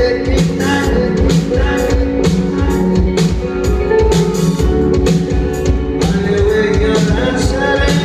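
Rock band playing live on stage: electric guitars and a drum kit keeping a steady beat, with a male singer on the microphone.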